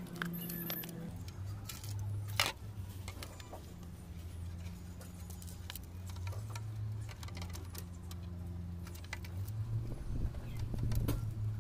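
Small clicks and knocks of a mixer grinder's plastic body parts and motor being handled and fitted together, with one sharper knock about two seconds in. A steady low hum runs underneath.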